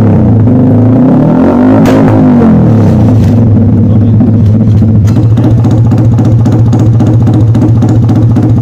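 Single-cylinder sport motorcycle with an aftermarket exhaust being blipped, its revs rising and falling in two or three quick sweeps. About three seconds in it settles to a steady high-rev note with a rapid stutter, with music underneath.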